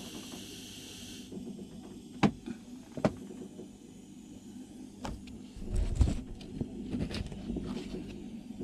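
A steady hiss from the soldering iron cuts off about a second in. Then come a few sharp clicks and knocks of tools and hands working on the wiring at a marine diesel's starter solenoid, the loudest a dull thump about six seconds in.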